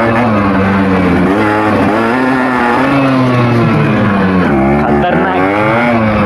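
Yamaha two-stroke 100 cc motorcycle engine pulling away and revving up through the gears. Its pitch climbs and drops back several times as the gears change.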